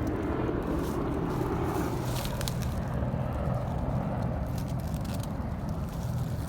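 Steady low rumble of two large military helicopters flying over, with a few faint rustles and clicks.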